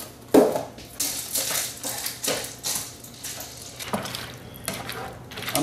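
Plastic spatula stirring and scraping chicken, macaroni and liquid around a nonstick electric skillet, in a run of irregular scraping strokes.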